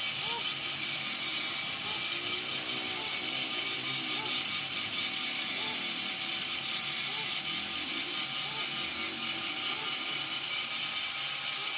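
Handheld angle grinder running under load, its disc grinding into the steel of a truck's rear axle housing with a steady, high, hissing screech.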